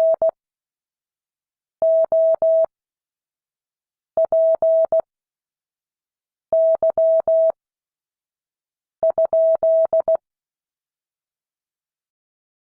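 Morse code practice tones: a single high steady beep keyed into dots and dashes, sent one character at a time with about two seconds of silence between characters. This is the slow-spaced practice text that the class copies by ear.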